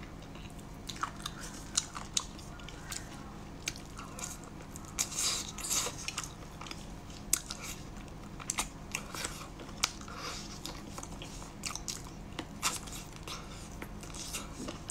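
Close-up eating of spicy braised chicken feet: biting and chewing with many irregular sharp crunches and cracks.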